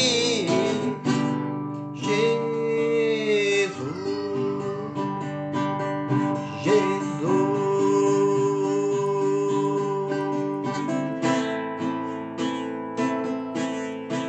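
Music: an acoustic guitar playing an instrumental passage between sung verses, with held notes.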